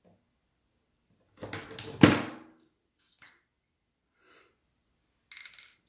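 A short rustle leading into one sharp thump about two seconds in, with a brief ring after it, then a few faint clicks near the end.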